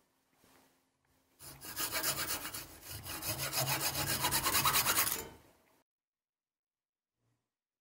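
Hacksaw cutting through a thin metal rod held in a bench vise, a run of quick rasping strokes. It starts about a second and a half in and stops about five seconds in.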